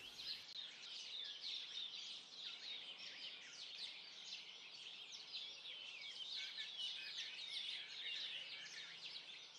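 Faint chorus of many birds chirping, with short, quick calls overlapping densely.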